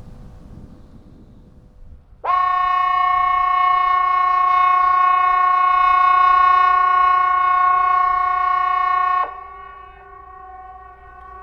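Hesa Fredrik civil defence alarm siren sounding a steady, unwavering multi-tone blast that starts abruptly about two seconds in and cuts off sharply about seven seconds later: one seven-second blast of the 'Important message to the public' warning signal, sounded here as the quarterly test. A fainter siren keeps sounding after the near one stops.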